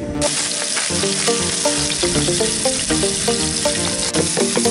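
Halved cherry tomatoes sizzling in hot oil in a frying pan on a camp gas stove, the sizzle starting suddenly a moment in and then holding steady, over background music.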